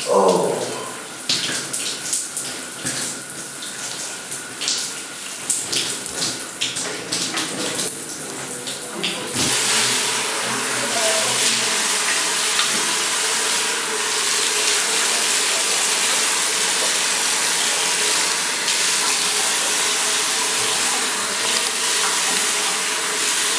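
Running water in a tiled bathroom: splashing and dripping for the first nine seconds or so, then a steadier, louder rush of water, with water from a sink tap splashing over hands and face near the end. A short voiced "oh" right at the start.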